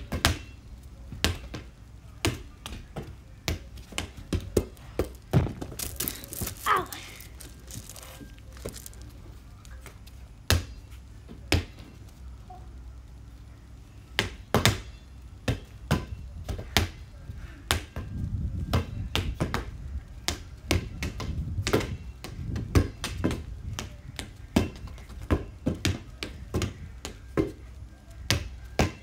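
Repeated sharp thuds and taps, irregular, about one or two a second, typical of a football being kicked and bounced. A low rumble rises and falls in the second half.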